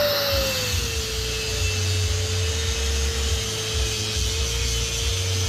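A small electric motor whines steadily, its pitch dropping a little about a second in and then holding. Under it are an irregular low rumble and rubbing noise.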